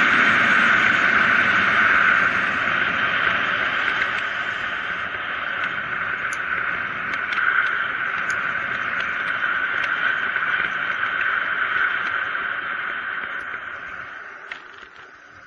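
Steady rushing noise of a mountain bike running downhill on asphalt: tyre hum and wind over the camera, with a few faint ticks. It fades away over the last few seconds.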